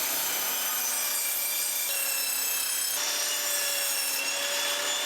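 Evolution Rage 5 table saw running and ripping wood, a steady blade and motor noise with a high whine whose pitch shifts a few times.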